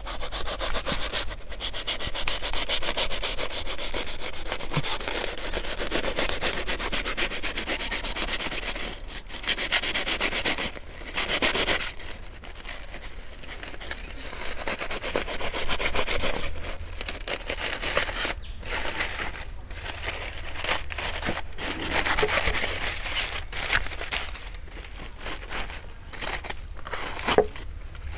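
Kitchen knife sawing back and forth through charred, stiffened aluminium-foil wrapping around a roasted chicken: a dense, rasping scrape of rapid strokes. About halfway through it breaks up into pauses and separate slower strokes.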